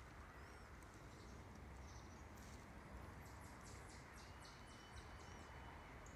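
Near silence outdoors. From about two seconds in, faint distant high chirps come in a quick run of about four a second for roughly two and a half seconds. A thin steady high whine starts about four seconds in.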